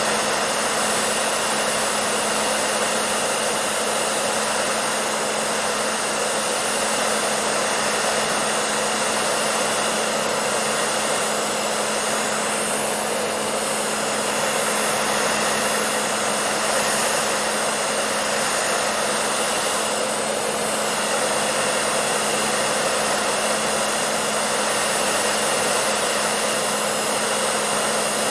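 Hair dryer running steadily, a continuous rushing blow of air with a steady motor hum underneath.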